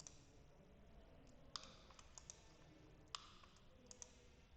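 Scattered single clicks of a computer mouse over faint room hiss, two louder clicks about a second and a half and three seconds in, with a few softer ones between.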